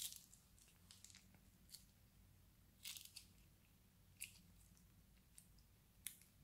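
Faint, sticky crackles and small pops of clear slime with beads being squeezed out of a plastic piping bag and the bag's plastic crinkling, in a scatter of short clicks, the strongest at the start and around three seconds in.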